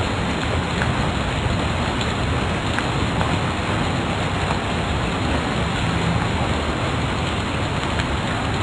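Steady, even hiss of background noise with no other sound standing out.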